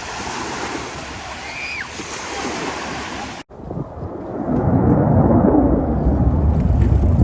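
Lakeshore waves and wind, a steady hiss. It cuts off suddenly about halfway through, and a loud low rumble swells up after it.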